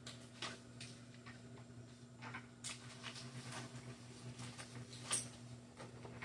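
Faint, scattered light clicks and rustles of seedling trays and young plants being handled, with one sharper click about five seconds in, over a steady low hum.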